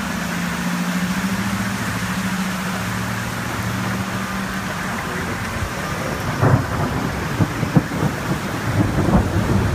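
Heavy rain pouring on a flooded street while cars drive through deep water, their tyres throwing up hissing spray. A steady low engine hum runs through the first half, and from about six seconds in sharp cracks and knocks cut in irregularly.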